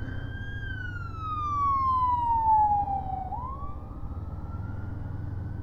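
Emergency vehicle siren wailing: its pitch falls slowly for about three seconds, then starts rising again. It is heard over the steady rumble of the motorcycle's engine and wind.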